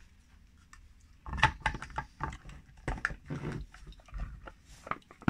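Irregular clicks, knocks and rattles of an old hand-crank Megger insulation tester being handled and lifted on a workbench, starting about a second in.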